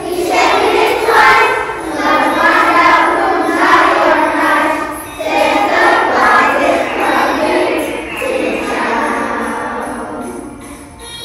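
A group of children singing a holiday song together over a backing track with jingle bells. The sound fades down near the end.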